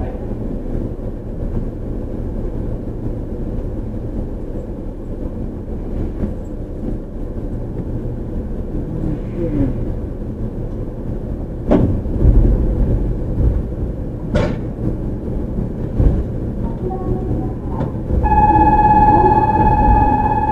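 JR Central 313 series electric train at the platform, its equipment giving a steady low hum, with three sharp knocks in the second half. Near the end a steady high electric whine starts abruptly, the Toshiba IGBT VVVF inverter powering up for departure.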